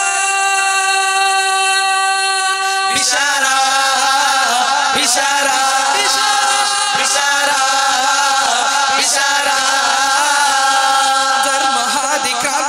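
Young men's voices singing a Kannada group song through microphones. A single long held note for about three seconds, then the voices take up a wavering, ornamented melody without clear words.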